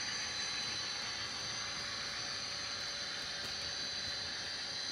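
Steady hiss with a faint, constant high-pitched whine, unchanging throughout.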